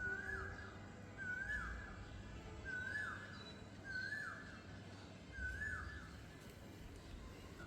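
A bird repeating the same short call over and over, about every second and a half: a brief note that slides up and then drops. Fainter chirps of other birds sit above it, with a low rumble underneath.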